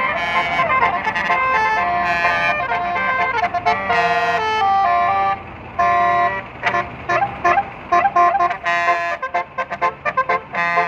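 Basuri multi-tone musical bus horn playing a melody: long held notes at first, then, after a brief dip about five seconds in, a quick run of short clipped notes.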